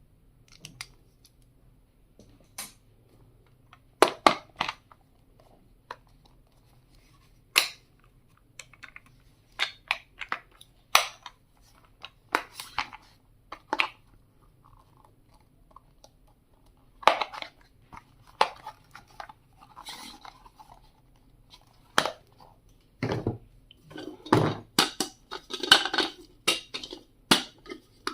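Stationery items being handled and unpacked: irregular sharp clicks and taps of hard plastic pieces, with short rustling stretches, busiest near the end.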